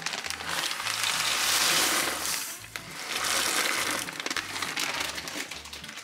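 Water at a rolling boil in a stainless steel pot, with a plastic bag crinkling as dry pasta is poured in. Soft background music with a repeating bass line runs underneath.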